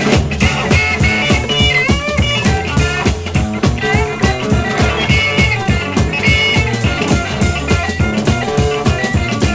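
Instrumental electric blues boogie from a two-guitar-and-drums band: a gliding slide lead guitar over a chugging rhythm guitar and a steady drum beat.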